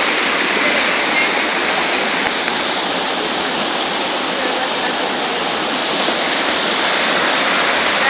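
Steady rushing of a waterfall's white water pouring down a smooth rock chute.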